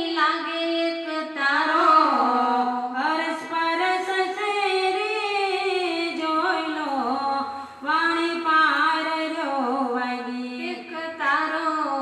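Women's voices singing a Gujarati devotional bhajan into microphones, unaccompanied, in long held notes that slide between pitches.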